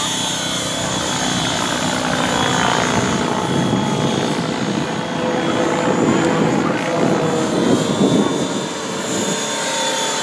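Align T-Rex 700 radio-controlled helicopter flying 3D manoeuvres: a steady high whine from the drivetrain under a swishing rotor-blade sound that rises and falls with the manoeuvres, loudest about six to eight seconds in.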